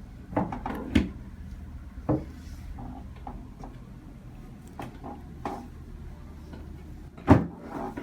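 Chiropractic drop table: its pelvic section being raised and set, then dropping under the chiropractor's thrust on the pelvis. Several short sharp clunks and knocks, the loudest and deepest about seven seconds in.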